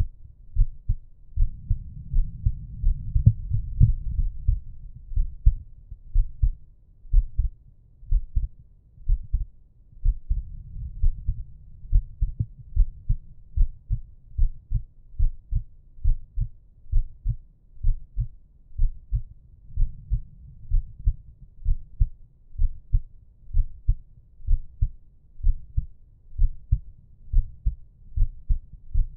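Human heartbeat at rest: a steady, regular run of low paired thumps, lub-dub. Slow breaths swell softly underneath every several seconds.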